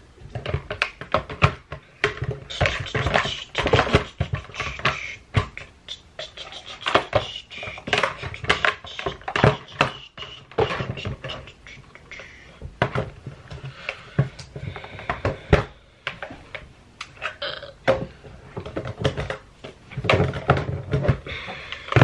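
Plastic makeup cases and palettes being handled and sorted, with many quick clicks, knocks and clattering.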